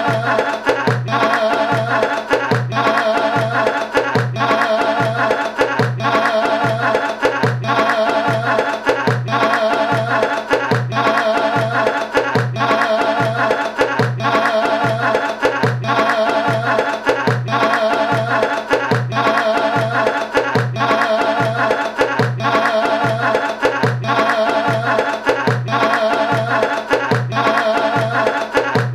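Music with a steady, evenly repeating drum beat under a wavering, ornamented melody.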